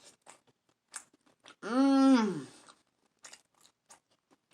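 Close-up eating sounds of a seafood boil: wet chewing and smacking clicks, with a long hummed "mmm" of enjoyment, rising and falling in pitch, about two seconds in.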